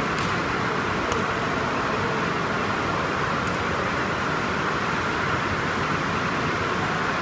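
Steady, even hiss of ventilation fans, with a couple of faint sharp clicks in the first second or so.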